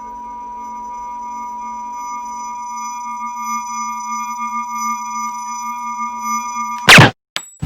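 Film sound-design drone of several steady electronic tones, swelling slowly louder, cut off near the end by a sudden loud hit with a falling sweep.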